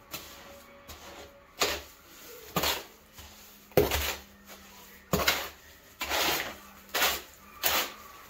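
Thick mortar being mixed by hand: a tool scraping and slapping through the mix in separate strokes, roughly one a second, with the mortar mixed a little thick, about like peanut butter.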